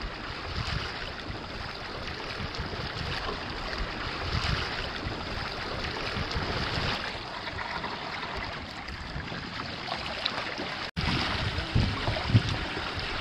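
Water rushing and splashing along the hull of a Hobie sailing kayak under way through choppy water, with gusts of wind buffeting the microphone. The sound drops out for an instant about eleven seconds in.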